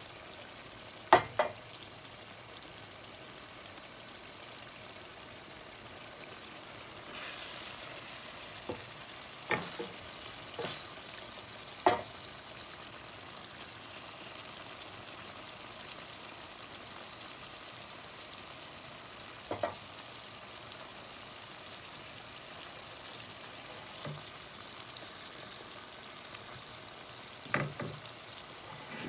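Chicken curry sizzling steadily in an open frying pan as its sauce reduces. A spatula knocks against the pan now and then while stirring, twice in quick succession about a second in and a few more times later.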